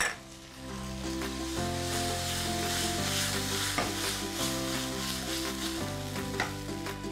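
Chicken drumstick, figs and nuts sizzling hard in a hot nonstick frying pan just after apple cider vinegar is splashed in, with the pan tossed and stirred over a gas flame. The sizzle swells about half a second in and stays strong, over steady background music.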